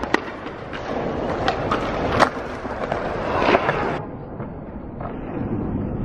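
Skateboard wheels rolling over concrete, with several sharp clacks of boards; the loudest comes a little past two seconds in.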